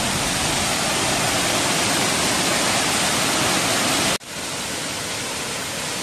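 Small waterfall rushing steadily over rocks into a pool. About four seconds in the sound breaks off for an instant and then goes on a little quieter.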